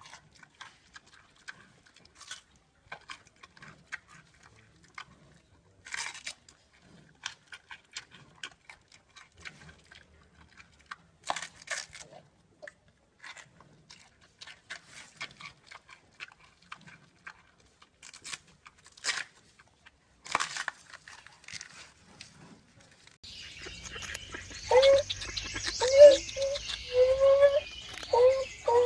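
Scattered faint clicks and taps, then, about 23 seconds in, a run of short, repeated animal calls over a steady outdoor background hiss.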